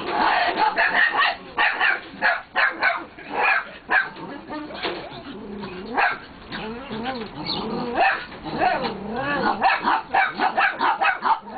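Rescue dogs barking excitedly in rapid, overlapping barks. From about five seconds in, wavering whines that rise and fall in pitch run among the barks, and the barking picks up again near the end.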